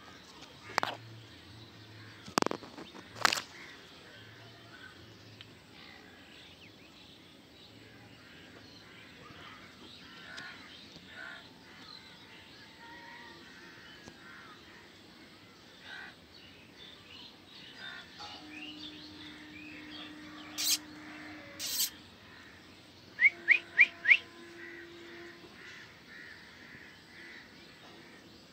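Birds calling outdoors, with crows cawing among them and a quick run of four loud calls near the end; a few sharp knocks.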